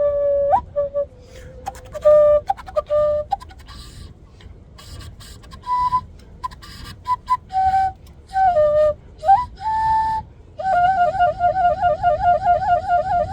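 Kenacho, an oversized Andean cane flute, playing short held notes and chirping, bird-like phrases mixed with sharp breathy clicks. It ends in a fast, even warbling trill.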